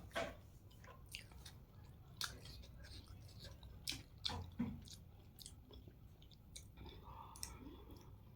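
Close-up chewing and mouth sounds of a person eating hakka noodles, with irregular short wet clicks.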